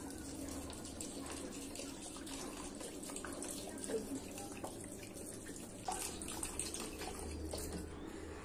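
Water poured in a steady stream from a plastic bottle onto raw rice in a clay bowl, splashing as the bowl fills to soak the rice.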